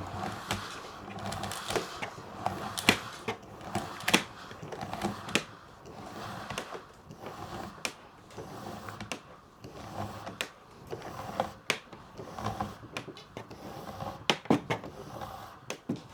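Uhlmann fencing scoring reel being handled while its new spring is tensioned, with the cable pulled out and wound back in: irregular clicks and knocks from the drum and casing, several a second at times.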